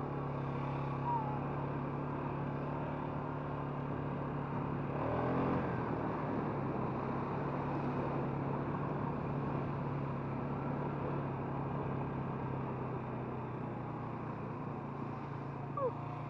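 Four-wheeler (ATV) engine running steadily while riding across grass, its note rising and falling once about five seconds in.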